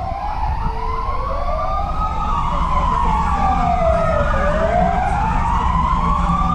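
Several fire-service vehicle sirens wailing together, their slow rising and falling tones overlapping out of step, over a low rumble.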